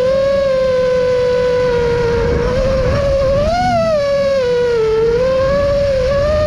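5-inch FPV racing quadcopter's brushless motors (2207, 1750KV on 6S) and propellers whining. The pitch holds nearly level at first, then rises and falls as the throttle changes from about halfway through.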